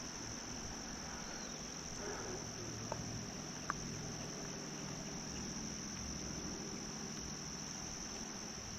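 A steady, high-pitched chorus of crickets droning without a break, with a couple of faint ticks about three seconds in.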